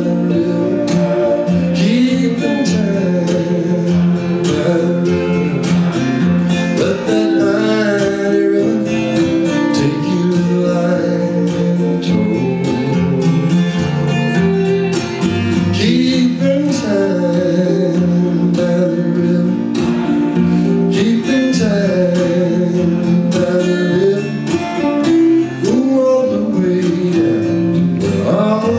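Live country song: strummed acoustic guitar with a steel guitar sliding and bending between notes, and a man singing.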